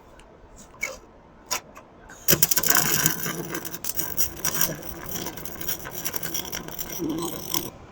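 MIG welding arc under carbon dioxide shielding gas: a few short pops about a second in, then a steady, dense crackle from about two seconds in that cuts off suddenly just before the end.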